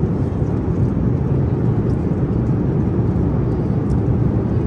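Steady low rumble of a moving vehicle heard from inside the cabin, even in level with no breaks.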